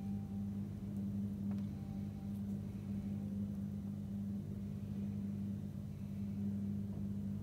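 Steady low electric hum of a kitchen appliance's motor, even and unchanging, with a faint tap about one and a half seconds in.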